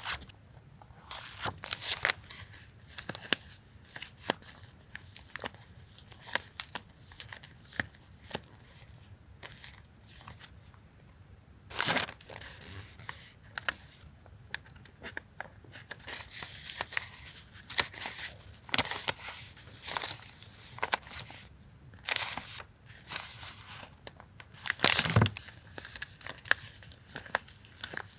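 Paper and plastic stationery packaging being handled: rustling and crinkling with scattered sharp taps and clicks. There are a few louder rustles, and one comes with a soft knock near the end.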